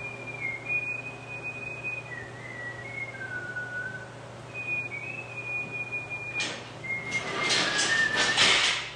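A man whistling a tune, one held note at a time stepping up and down. About six and a half seconds in, loud rattling and clanking starts as a folding engine hoist is handled, and the whistling carries on through it.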